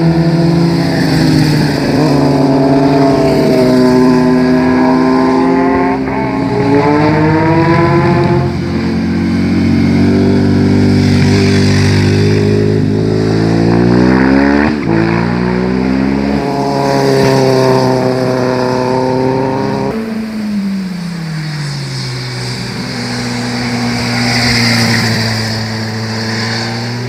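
Sport motorcycles riding through a hairpin bend one after another, their engines revving up with the pitch climbing and dropping back again and again as they accelerate and change gear. About halfway through, one bike passes close with a quick rise and fall in pitch.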